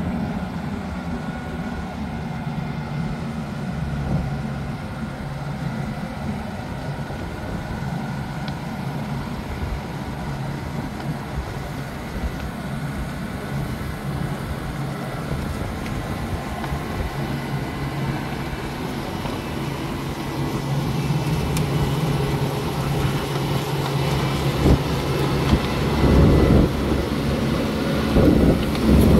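Kubota ARN98 six-row combine harvester running and driving on its rubber tracks with a steady diesel engine hum. It grows louder as it comes close, with loud uneven surges near the end.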